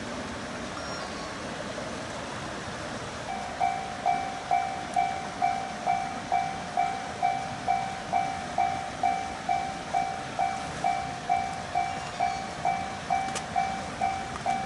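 Japanese level crossing warning bell starting up about three seconds in and ringing steadily, just over two strokes a second, the signal that a train is approaching and the crossing is closing. Before it, only a steady background hiss.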